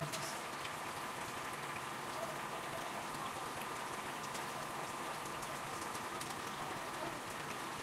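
Ground-meat tomato sauce sizzling in a frying pan over a gas flame: a steady frying hiss with small scattered pops.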